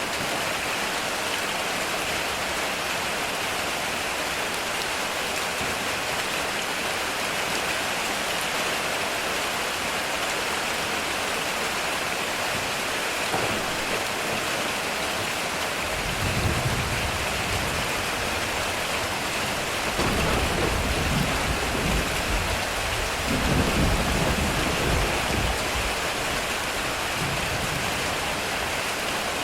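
Heavy rain falling in a steady hiss, with rolling thunder rumbling in low from about halfway through and swelling again, loudest a little past two-thirds of the way.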